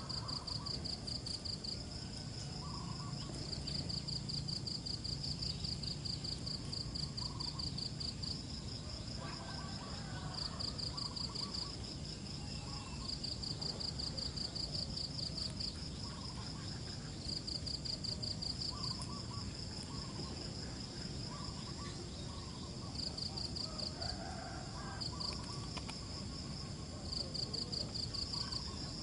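Insects trilling outdoors: high-pitched bursts of rapid pulses, each about a second long, repeating with short gaps over a steady high whine.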